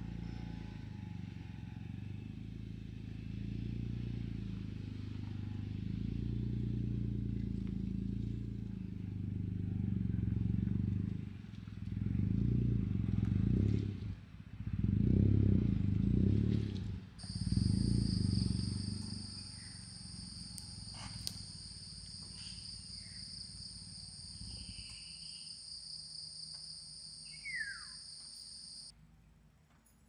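A small hatchback's engine running as the car drives in and manoeuvres to park, revving up in four short surges in the middle, then settling to a low idle.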